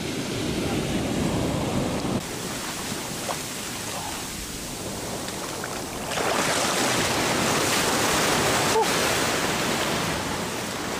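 Ocean surf washing onto the beach, a steady rush of breaking waves that grows louder about six seconds in.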